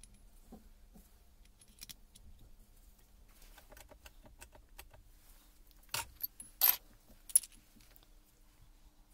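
Metal parts of a Hilti TE700 clinking and rattling as they are handled, with light clicks at first and then three sharp, ringing metallic clinks about six to seven and a half seconds in.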